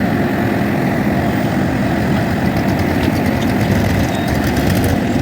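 Heavy diesel engine running steadily, with a deep low hum.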